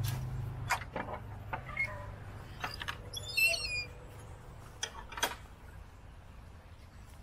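A bird calls once, a short wavering string of high notes falling in pitch, about three and a half seconds in. Scattered light clicks and knocks come through the first few seconds, over a low steady hum that fades.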